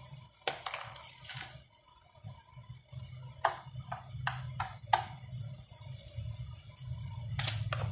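Metal spoon scraping and tapping against a frying pan while working a mound of sugar in a little hot oil to melt it for caramel. There is a scrape early on, then five sharp taps about 3.5 to 5 seconds in, and another scrape near the end.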